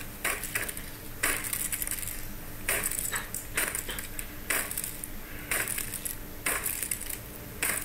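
A hammer smashing an old computer: about ten sharp, heavy blows at irregular intervals, roughly one a second.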